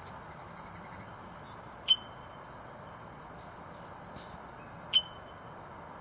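Red-winged blackbird giving two sharp calls about three seconds apart, each a sudden note that carries on briefly as a thin high tone, over steady background noise.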